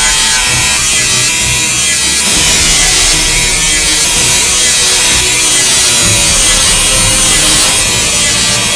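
Makita angle grinder with a cut-off disc cutting through sheet-steel body panel, a steady, loud, hissing grind, with music playing along.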